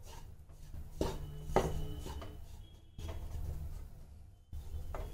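Wooden spatula scraping and pressing crumbly gram flour against a nonstick kadhai as the besan roasts in ghee, with a few sharp knocks of the spatula on the pan.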